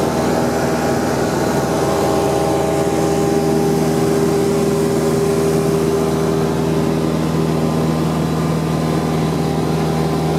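Single-engine propeller plane's piston engine and propeller running steadily at climb power just after takeoff, heard from inside the cabin as a loud, even drone. The drone's pitch shifts slightly a few seconds in.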